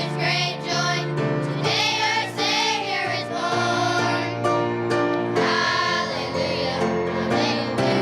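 Children's choir singing a Christmas song with instrumental accompaniment, holding long, wavering sung notes.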